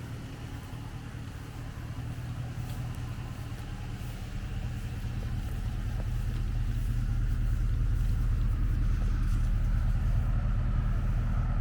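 Dodge Ram 1500 pickup's engine running steadily, growing gradually louder over the first several seconds and then holding level.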